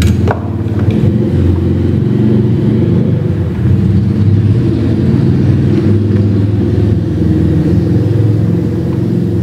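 A loud, steady low rumble that does not let up, with no clear strokes or rhythm.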